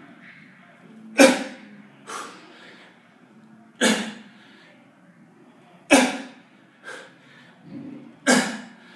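A man's sharp, forceful breaths out, four loud ones about every two to two and a half seconds with a few softer breaths between, each one the effort of driving up out of a kettlebell goblet split squat.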